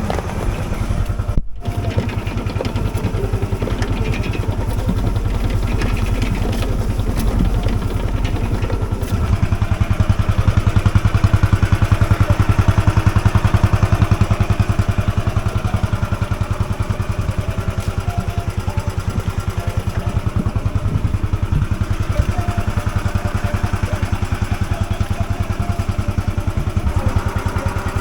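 Tractor engine running steadily, getting louder for a few seconds about ten seconds in.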